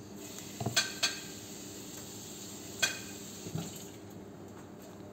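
Metal spoon scooping honey from a glass jar, giving a few light clinks against the glass, over a steady low background hum.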